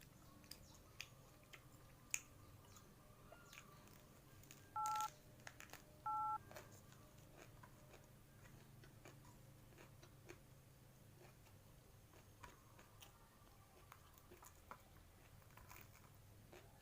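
Quiet chewing with small clicks and crunches of eating, and two short two-tone beeps, a telephone keypad tone, about a second apart near the middle; the beeps are the loudest sounds.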